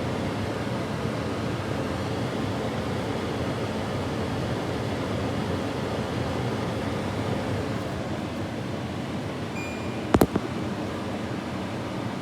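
LG air conditioner running, its fan blowing with a steady rushing airflow. About ten seconds in, a faint short beep is followed by two sharp clicks in quick succession.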